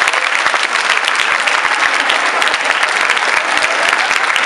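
Audience in a hall applauding: a dense, steady clatter of many hands clapping.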